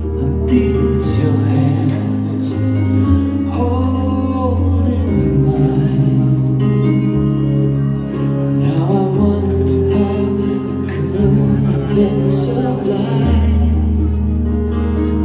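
Music: a singer's wavering melody over sustained bass notes that change every second or two.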